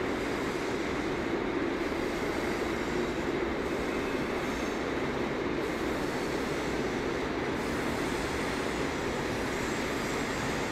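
Freight train of flat wagons loaded with pipes rolling steadily past, a continuous rumble of wheels on rails.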